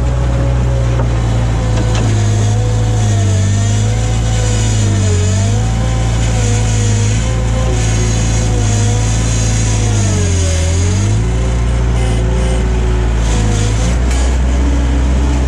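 Bobcat skid steer engine running at high throttle while working a bucket of dirt. Its pitch sags briefly twice, about five seconds in and more deeply about ten seconds in, as it bogs under load: the bucket is too heavy for the machine.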